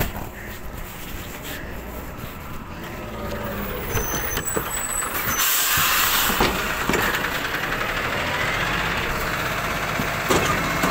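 Side-loader rubbish truck running close by, growing louder over the first few seconds. About halfway through, a long steady hiss of air joins the engine and lasts to the end.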